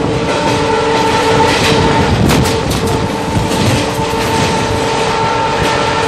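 Passenger express train running at speed, heard from an open coach door: a steady rumble with wheels clattering over rail joints and points, sharpest about two seconds in, and a steady whine held throughout.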